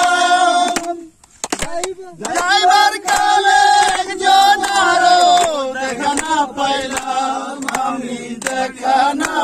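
A group of men singing a Bengali folk song together in long, drawn-out notes, with hand clapping along. The singing breaks off briefly about a second in, with only a few claps, then resumes.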